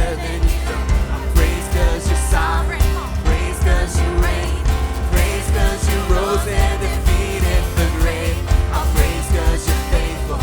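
Live worship band playing an upbeat praise song, with drums, bass, synth, piano and guitar, and a singing voice over it. The drums beat steadily under a heavy bass line.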